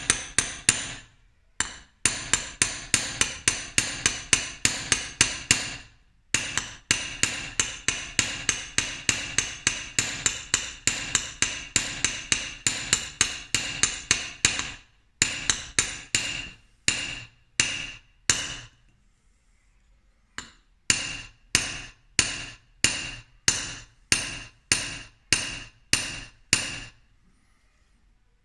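Hammer tapping a laminated Japanese blade on a small steel anvil in quick, even strokes, each with a short metallic ring. This is uradashi, hammering out the back of the blade to prepare it for sharpening. The taps come about four a second, slow down later, and stop for a few brief pauses.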